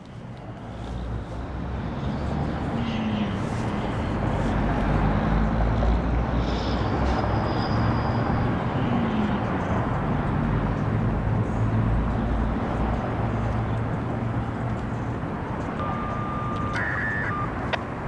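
Outdoor background noise: a steady low rumble with a broad hiss that swells over the first few seconds. A brief steady high tone comes near the end.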